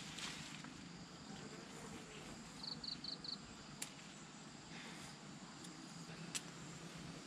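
Faint steady buzzing of insects. A quick run of four short high chirps comes a little before the middle, and two sharp clicks follow later.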